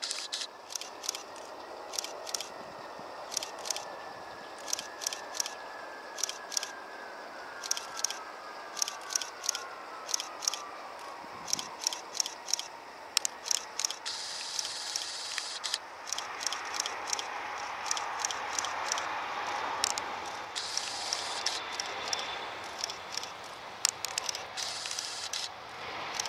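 Ilyushin Il-76TD's four D-30KP turbofan engines landing: a thin whine falls slowly in pitch as the jet comes in and passes, then a broader rush of engine noise swells after touchdown. Frequent sharp crackling clicks in clusters run throughout and are the loudest sounds.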